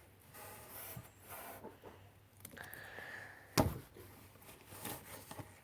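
Faint rubbing and squishing of soft sticky squishy toys being handled and pressed, with one sharp knock about three and a half seconds in.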